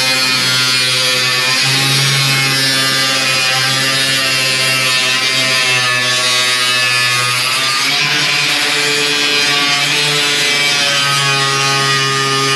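A power tool running continuously as it cuts through the car body's sheet metal, with a steady buzzing hum and hiss. Its pitch dips briefly about one and a half seconds in and again near eight seconds, as the tool loads in the cut.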